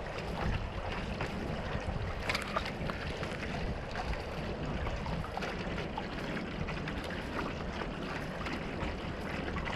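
Water rushing and splashing along a one-person outrigger canoe's hull under steady single-blade paddle strokes, with scattered small splashes and wind on the microphone.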